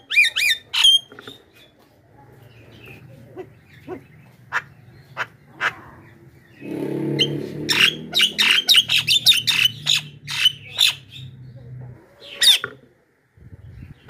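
Javan myna giving loud, sharp squawking calls: a few single calls at first, then a quick run of calls from about seven to eleven seconds in, and one more near the end. A low hum sits under the middle stretch.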